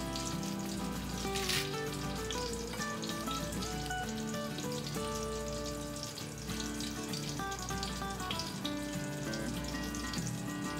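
Cobia fillet frying in butter in a covered pan, a steady sizzle with small crackles, over background music.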